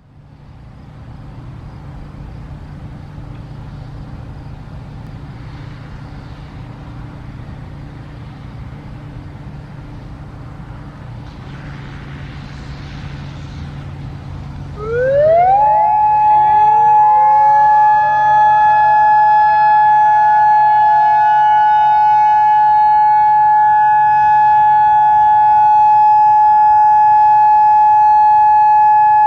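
A steady low background hum. About halfway through, the Federal Signal Modulator 4016 electronic siren comes on, rising quickly to a loud, steady alert tone. Beneath it, more distant Federal Signal 2001 electromechanical sirens wind up more slowly and settle into their own steady tones, so several pitches sound together.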